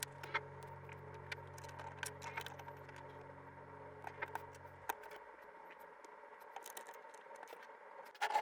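Faint clicks and light clatter of small plastic LEGO pieces being handled, scattered and irregular, over a steady low electrical hum that cuts off suddenly about five seconds in.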